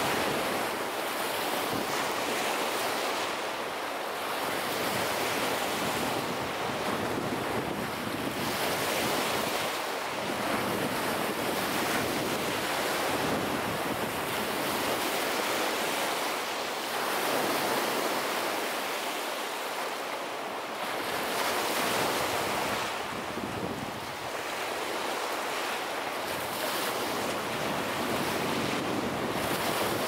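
Lake Michigan waves breaking and washing up a sandy beach: a continuous rushing surf that swells and eases every few seconds as each wave comes in.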